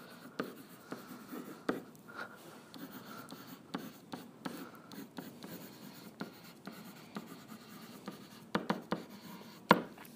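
Stylus writing on a tablet screen: faint scratching strokes with light ticks of the pen tip, and a few sharper taps near the end.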